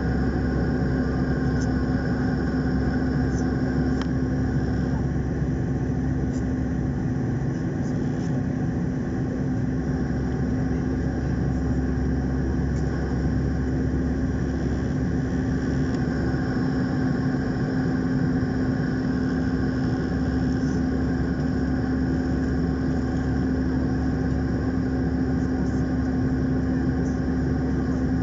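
Jet airliner cabin noise in flight: the steady drone of the engines and airflow heard from a window seat over the wing, with a constant low hum.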